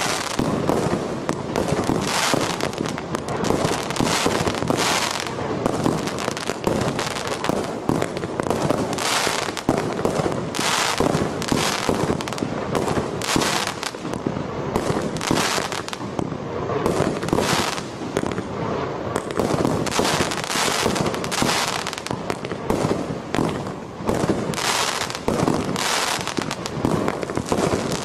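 Tai Pan 'Apocalypse' 61-shot consumer firework barrage cake firing from a single ignition. Its tubes launch one after another and burst overhead in a steady string of loud bangs, about one a second. The shells carry a high flash content, which gives each burst a heavy report.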